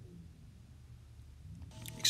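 Faint, low background music, growing fuller with steady tones near the end.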